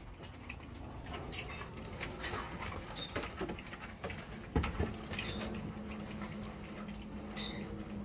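German Shepherd and Malinois puppies milling on concrete: scattered claw clicks and paw scuffles, with a few short high squeaks now and then. There is a louder thump about halfway through, and a low steady hum comes in just after it.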